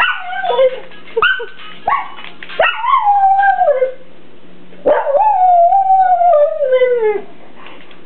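Kelpie howling in a run of calls, each starting high and sliding down in pitch: a few short howls, then a longer one, then the longest, which starts about five seconds in and trails off about two seconds later. The dog is howling along to a mobile phone ringtone.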